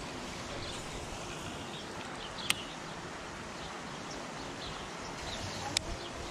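Outdoor ambience: faint bird chirps over a steady background hiss, with two sharp clicks about three seconds apart.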